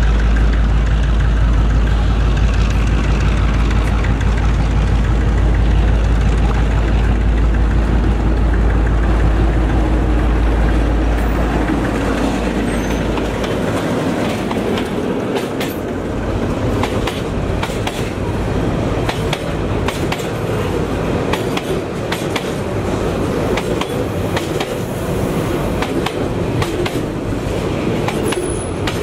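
Diesel locomotive of a container freight train rumbling heavily as it approaches and passes, then, from about halfway through, the long line of loaded container flat wagons rolling past close by, wheels clicking rapidly over the rail joints.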